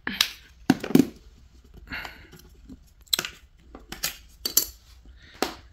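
A plastic TV remote control and its AA batteries being handled while the battery cover is worked off: a series of irregular sharp plastic clicks and knocks.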